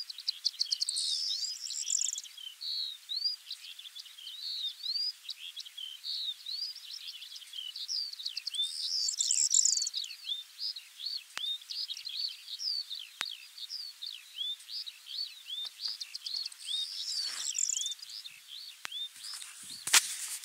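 Eurasian skylark singing: a long unbroken stream of quick, high warbling and chirping notes. A sharp click near the end is the loudest sound.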